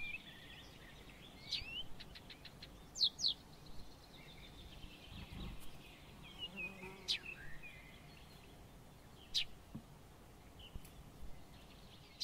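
Small birds chirping and calling, with short chirps, several quick downward-sweeping whistles and a brief rapid trill, over a faint steady hiss.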